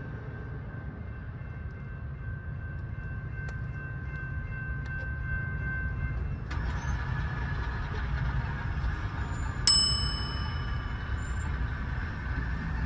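A single bright ding rings out and decays about ten seconds in, over a low steady rumble. A faint thin whine in the background stops abruptly partway through.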